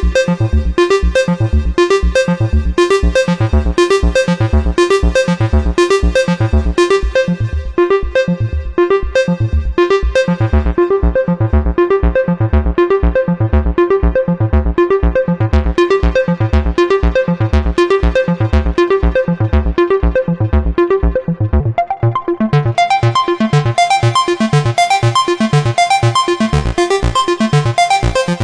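Moog Subsequent 25 analog synthesizer playing a fast repeating sequence of short, bass-heavy notes, about three or four a second. The highs fall away about ten seconds in, and the tone brightens again with higher notes from about twenty-two seconds on.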